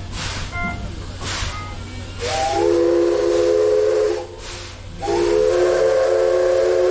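Steam whistle of the JNR Class C11 tank locomotive C11 123 sounding two long blasts of about two seconds each, a second apart, each sliding up quickly into a steady chord. Steam hisses before the first blast.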